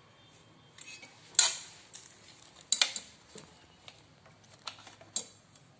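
Stainless-steel pots and a pressure cooker clinking and knocking as they are handled and a ruler is worked between them on a glass-top stove. There are several scattered light knocks and clinks; the loudest comes about a second and a half in and rings briefly.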